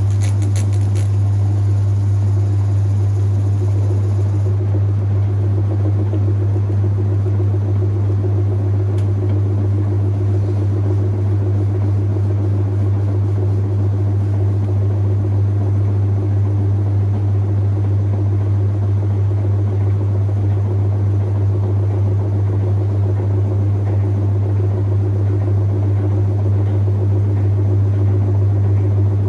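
Whirlpool Heavy Duty top-loading washing machine running with a steady low hum. A faint high hiss stops about four seconds in.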